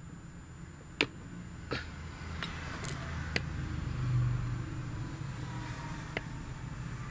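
Low steady background rumble with several sharp clicks or taps, the loudest about a second in.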